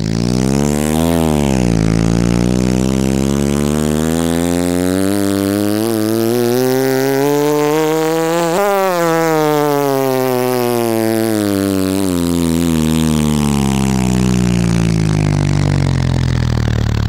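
Truck engine driving: a short rev about a second in, then the engine pitch climbs steadily as it speeds up, peaks a little past halfway, and slowly winds back down as it slows.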